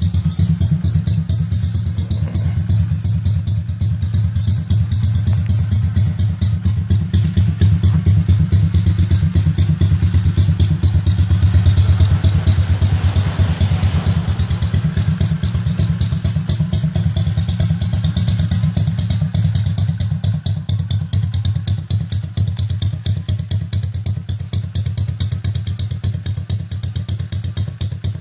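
Honda XRM 125's single-cylinder four-stroke engine running at idle, its exhaust pulsing in a quick, even beat. The engine is blipped slightly a third of the way in, then settles back to idle.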